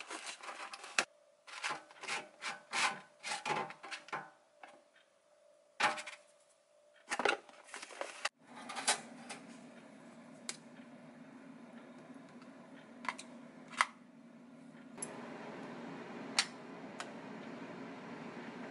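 Cardboard takeout box and plastic food packaging rustling, crinkling and tapping as they are handled and opened. Then a steady low hum with a few sharp clinks of a utensil or container against dishes.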